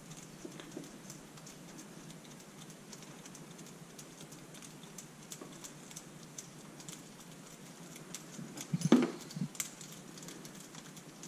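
Faint small metal clicks and taps as a Honda CB125E's cam chain tensioner and its bolts are fitted by hand to the cylinder, with a few louder knocks about nine seconds in.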